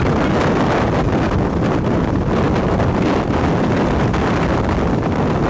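Strong wind buffeting the microphone near a tornado: a loud, steady rush of noise, heaviest in the lows, with no let-up.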